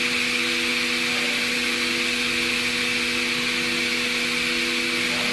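Air compressor running steadily: an even hum with a constant hiss of air.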